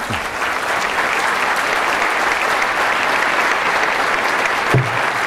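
Large audience applauding steadily, a dense even clapping that carries through without a break.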